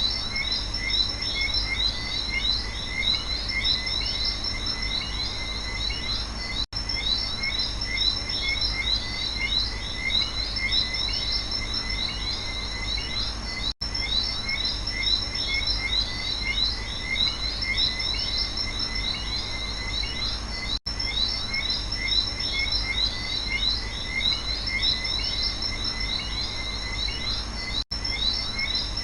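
Night rainforest chorus of frogs and insects: many short, overlapping chirping calls over a steady high insect drone and a low background rumble. The sound drops out for an instant about every seven seconds, where the recording loops.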